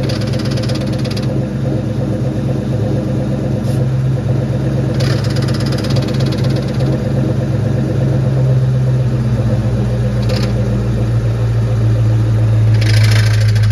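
2004 Ford Mustang Mach 1's 4.6-litre DOHC V8 running at idle, heard from under the car, its note growing stronger about halfway through. A few brief hissy noises come through, about 4, 5, 10 and 13 seconds in. The car has a clutch noise from metal contact: a backed-out pivot ball stud is letting the clutch fork grind on the pressure plate.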